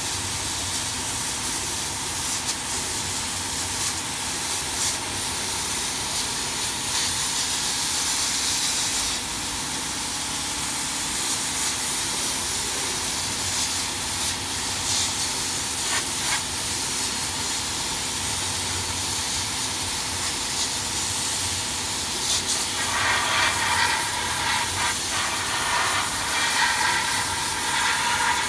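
Dual-head CO2 laser fabric cutting machine running: a steady hiss of air with a faint steady hum underneath, growing louder and rougher for the last few seconds as the cutting heads work.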